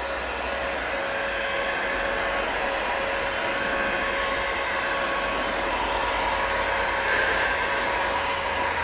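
Handheld electric heat gun running steadily, a continuous rush of blown air with a faint steady tone in it, as it heats PEX tubing to soften it for bending.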